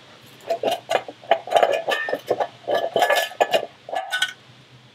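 Clinks, knocks and rattles of a Rough Country MLC6 power distribution box being handled: its metal latch is worked and the cover is lifted off the steel mounting plate. The run of quick clinks and taps stops shortly after four seconds in.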